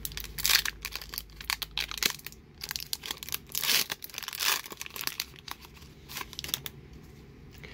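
A foil booster pack of Pokémon trading cards being torn open and crinkled in the hands, in irregular rustling and crackling bursts.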